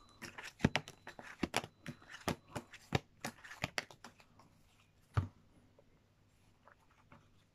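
A deck of cards being shuffled by hand: a quick, uneven run of sharp card snaps and flicks that dies out after about four seconds, followed by one louder knock about five seconds in.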